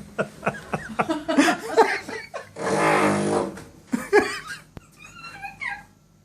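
A drill boring into the ceiling buzzes in a single burst of about a second, some two and a half seconds in. Before it, people laugh.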